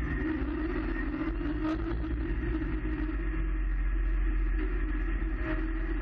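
Steady engine drone of the UHAC half-scale prototype amphibious vehicle moving through a flooded well deck, with water churning around it.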